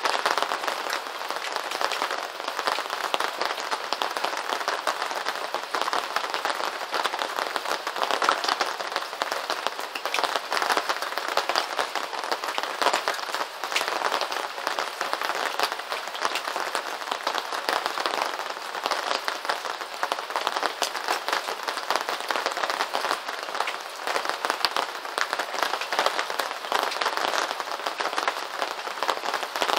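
Rain pattering steadily on a surface, a dense spray of small taps with no low rumble.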